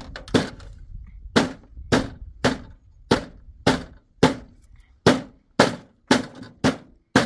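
Steady hammer blows on wood, about two a second, a dozen or so strikes with a short pause about a second in, typical of nailing boards while repairing a door.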